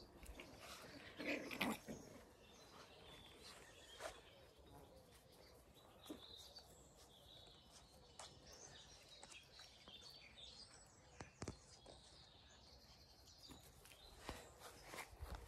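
Quiet garden ambience with faint birdsong, soft rustles and a few light knocks. A puppy makes a brief yelp about a second and a half in.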